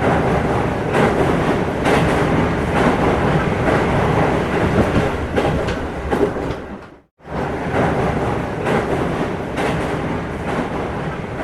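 A train running on track, a steady rumble with the clack of wheels over rail joints roughly once a second, broken by a brief dropout about seven seconds in.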